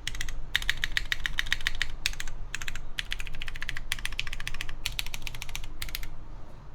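Typing on an Origami TKL mechanical keyboard with lubed Cherry MX2A Brown tactile switches, a polycarbonate plate and GMK keycaps: quick runs of keystrokes in bursts with short pauses. The typing stops about six seconds in.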